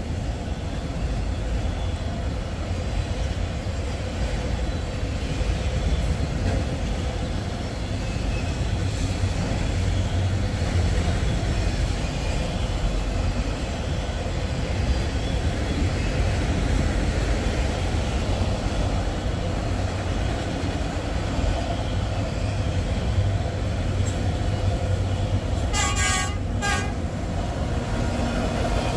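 Rail traffic passing with a steady low rumble, and a short horn toot near the end.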